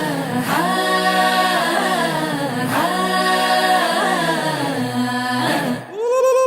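Song sung without instruments: voices hold long, sliding notes, with a short break a little before the end as a new note starts.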